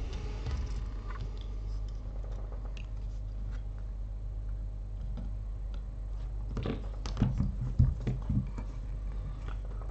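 Small clicks, knocks and rustles of an iPhone 6 logic board being picked up and set in place on a workbench, over a steady low hum. The handling noise grows louder for a moment about seven to eight seconds in.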